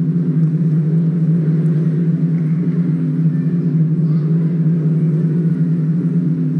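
Low, steady suspense drone from the show's music, several sustained low tones held without change. It is the tension cue that holds the pause before a pageant result is announced.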